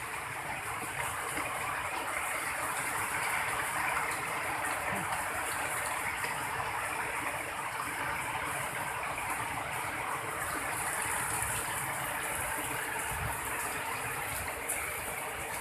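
Heavy tropical rain falling: a steady, even hiss.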